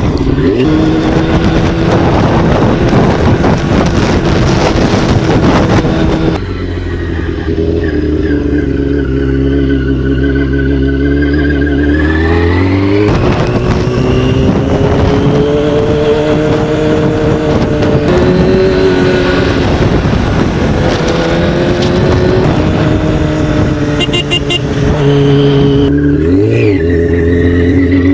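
Yamaha R6 sport bike's inline-four engine running under way, its pitch rising and falling with the revs, with heavy wind noise on the microphone that eases off for a few seconds about six seconds in.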